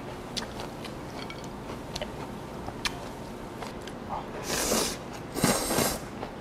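Eating with loud slurps: a mouthful of cold squid mulhoe sucked in from the bowl twice, about four and five and a half seconds in, after a few small clicks of chewing and chopsticks.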